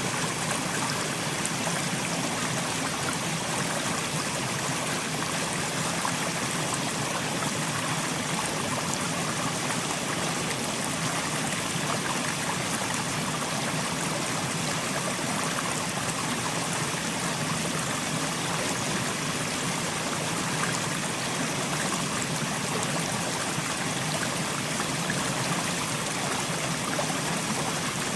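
Mountain stream flowing steadily, water rushing and trickling over rocks.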